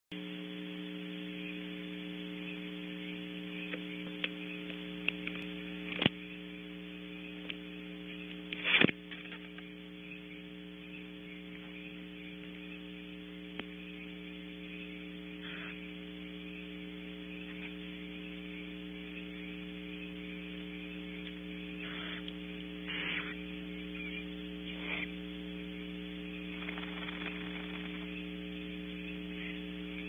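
Steady electrical hum with a faint buzz from the nest camera's audio feed. Two sharp clicks come about six and nine seconds in, and a few brief, faint rasping noises come near the end.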